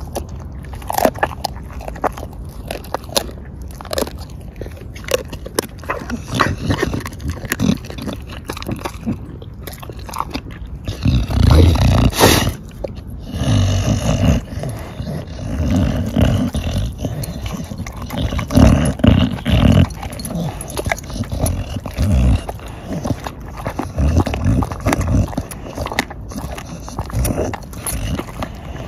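Bulldog-type dog chewing and crunching a raw black-feathered chicken carcass: wet chewing with sharp cracks throughout, becoming louder and denser from about the middle on.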